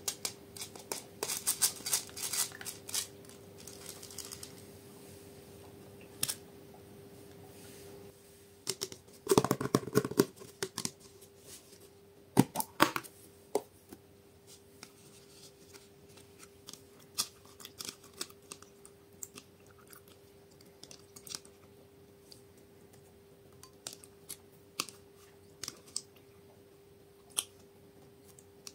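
Slime being handled and mixed by hand, with scattered sticky clicks and crackles and two louder bursts of squishing about nine and twelve seconds in. A faint steady hum runs underneath.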